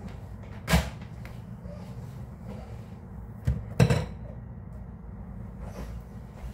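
Sharp knocks and clatters of things being handled on a kitchen counter: one about a second in, then two close together near the middle, over a steady low hum.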